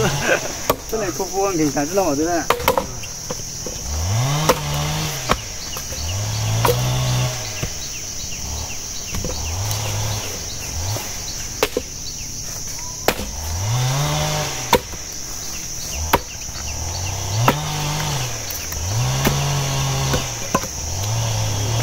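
Axe chopping firewood: sharp strikes every second or two, over a steady high buzz of insects. A low tone swells and fades every couple of seconds beneath them.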